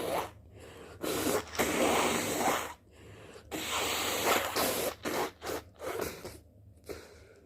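A person with flu blowing their congested nose: two long, hard blows starting about a second in and at three and a half seconds, then a run of short blows near the end.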